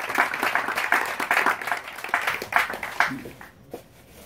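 A small group applauding, the clapping dying away about three seconds in.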